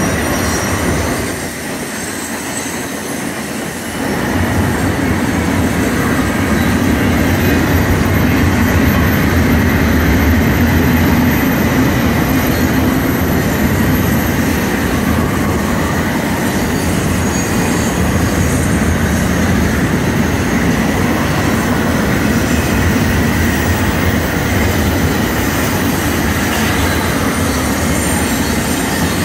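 Double-stack intermodal freight cars rolling past at speed: a steady heavy rumble of steel wheels on rail with a thin high wheel squeal over it. The sound dips briefly about a second in, then comes back as loud.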